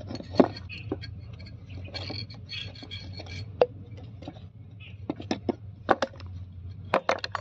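Sharp metallic clicks and knocks as the metal parts of a dismantled truck air-brake relay valve are handled and set against each other on a wooden board. The strikes are scattered, with a quick cluster near the end, over a steady low hum.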